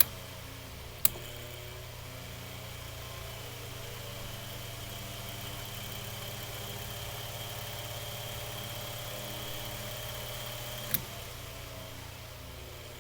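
Freshly oiled and balanced Mainstays 9-inch high velocity fan running on medium speed: a steady motor hum with a faint high whine. Two sharp clicks, one about a second in and one near the end.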